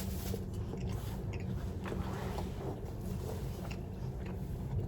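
A person chewing a fish ball, with a few faint small clicks, over a steady low hum.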